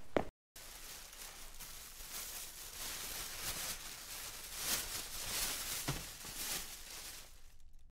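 Rustling of a thin produce bag being opened, with corn husks crackling as ears of corn in the husk are handled and pulled from a pile, in several louder swells through the middle.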